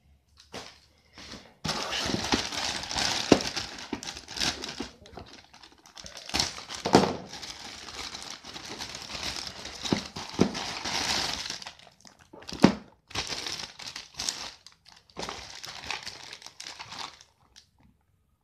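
Plastic postal bag crinkling and rustling in the hands as it is torn open and a toy in a plastic bag is pulled out, with several sharp snaps. The rustling starts about a second and a half in and stops a little before the end.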